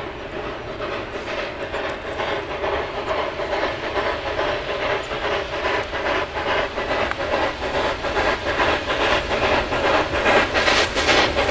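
Mallet 0-4-4-0T steam tank locomotive FE 440-008 (Ansaldo, 1915) at work. Its exhaust beats come quick and even and grow louder as it approaches.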